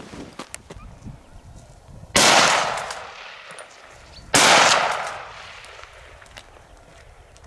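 Two gunshots from a hunting long gun, about two seconds apart, each sharp crack trailing off in an echo.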